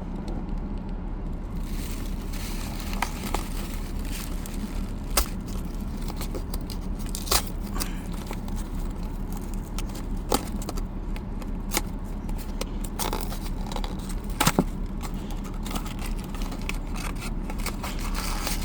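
Littlest Pet Shop blind-box packaging being handled and opened: scattered crackles, clicks and scrapes over a steady low hum.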